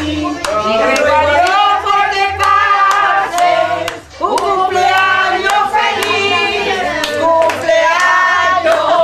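A group of people singing together and clapping their hands to a steady beat, about two claps a second.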